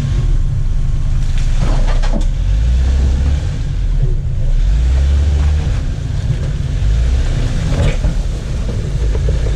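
Off-road vehicle engine running with a low rumble, with a few louder surges as it works over rock, and a few brief scrapes or knocks.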